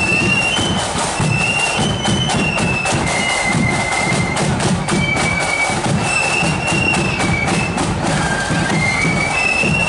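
Marching flute band playing: a high melody of flutes in unison moves in steps over the steady beat of the snare and bass drums.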